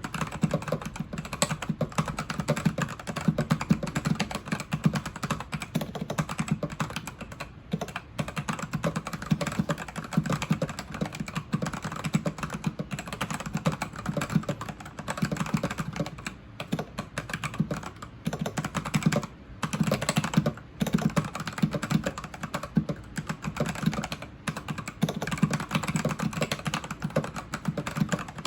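Custom-built mechanical keyboard being typed on steadily: a fast, dense run of key clacks with a few short pauses.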